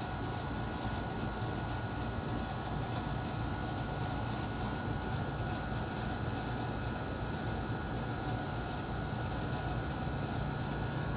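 Steady, even background rumble with a few faint steady tones in it, and no distinct digging strokes standing out.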